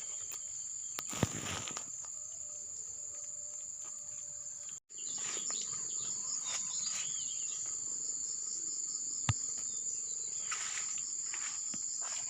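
Steady high-pitched drone of insects, crickets or similar, in a rural garden, with a few faint rustles and clicks. The sound drops out completely for a moment about five seconds in.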